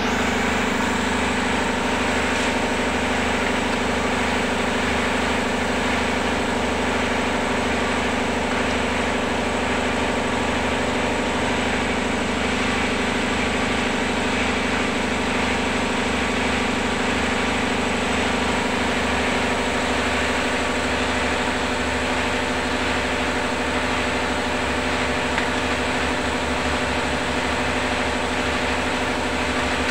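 Steady, unchanging machine hum from a running motor or engine, with a thin high whine above it.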